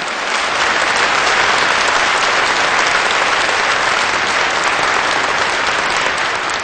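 A large audience applauding: dense, steady clapping that swells over the first second and begins to ease off near the end.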